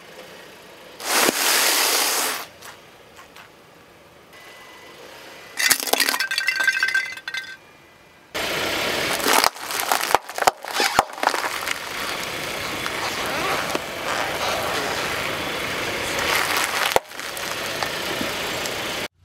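A car tyre slowly rolls over packaged snacks and crushes them: two short crunches, then a long stretch of dense crackling and crumpling as a bag of cornflakes and a cardboard box of cookies in foil-wrapped packs are flattened.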